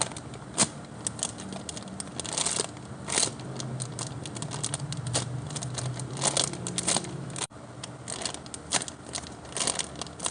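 Foam squishy toy being squeezed and handled close to the microphone: irregular crinkling and crackling with scattered small clicks, cut off briefly about seven and a half seconds in.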